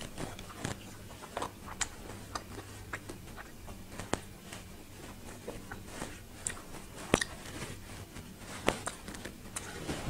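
Close-miked chewing and biting of spicy shredded green papaya salad with salmon, with many short sharp mouth clicks and crunches scattered through, the loudest a little after four seconds and about seven seconds in. A faint steady low hum sits underneath.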